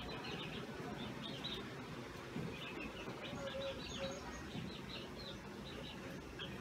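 Birds chirping faintly in the background: a scattered run of short, high chirps over a low, even hiss.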